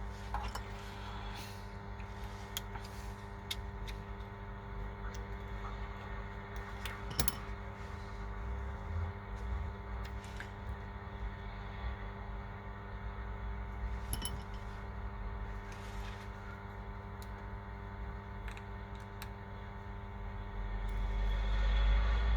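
Steady electrical hum under a scattered handful of light clicks and taps, the sound of small tools and parts being handled on a phone repair bench. A low rumble swells up near the end.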